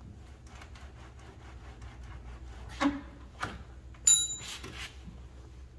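Steel hinge rod being twisted and worked through the hinge of a leaf-vacuum trailer's lid, giving a run of faint clicks and rubbing. Two louder knocks come around the middle, then a short metallic ring.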